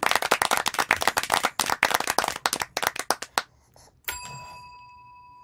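Hands clapping in quick applause for about three seconds. About four seconds in, a pug presses a chrome desk bell with its paw: one ding that rings on and fades.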